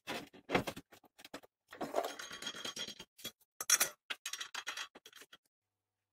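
Steel parts handled on a steel workbench: a run of clinks and knocks with a scrape about two seconds in, loudest a little under four seconds in, as a wrench, a square steel tube and a threaded rod are picked up, slid and set down.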